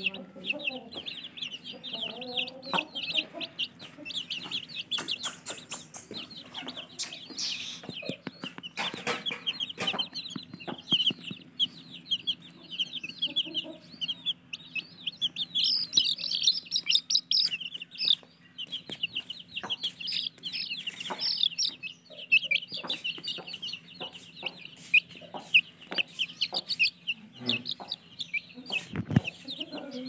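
A brood of Aseel chicks peeping nonstop, many short high cheeps overlapping. About halfway through the peeping gets louder and higher.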